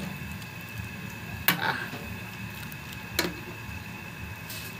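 A metal ladle stirring soup in a coated pot, with two short clinks of the ladle against the pot, about one and a half seconds in and again near three seconds in.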